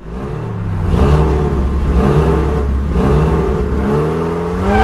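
Car engine revving up and down about four times over a steady low idle.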